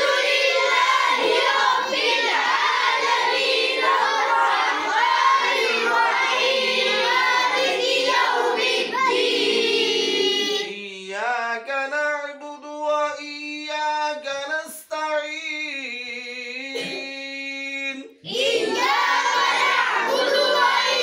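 Group of children reciting the Quran aloud together in a melodic chant. About halfway through, a single voice carries on alone in long held notes, and the group joins in again near the end.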